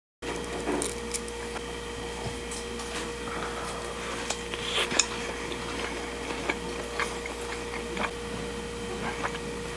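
Kitchen room tone: a steady hum with scattered light clicks and knocks, the loudest about five seconds in.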